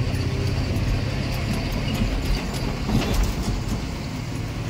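Truck cab noise while driving: a steady low engine drone with light rattling and ticking from the cab.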